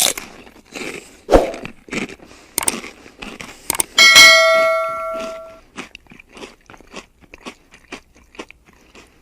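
A string of short, sharp clicks and crunches. About four seconds in comes a single bell-like ding that rings on for about a second and a half.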